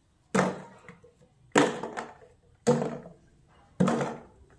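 Ball lollipops dropped one at a time into a clear plastic jar: four hard knocks about a second apart, each ringing briefly.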